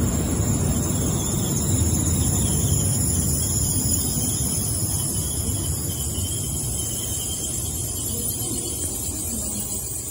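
JR West N700A Shinkansen train rolling into the platform and slowing down: a steady rumble of wheels on rail with a high whine over it, both fading gradually as the train loses speed.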